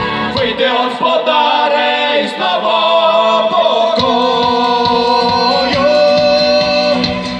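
Live folk-rock band with violin, guitars and drum kit, several voices singing together. The bass and drums drop out for about three seconds and come back in with a steady beat about four seconds in.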